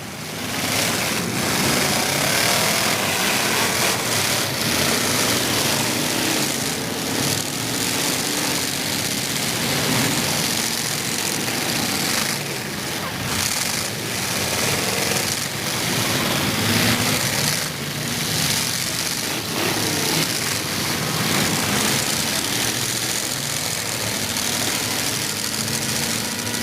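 Demolition derby truck engines running and revving, their pitch rising and falling, over a dense continuous din with a few sudden knocks.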